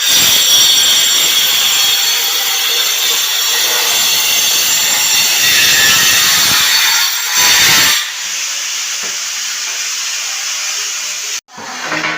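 A power tool working loudly on the concrete tile bed, a steady high whine with grinding noise, as the old mortar under popped-up floor tiles is chipped out. It drops quieter about eight seconds in and cuts off suddenly near the end.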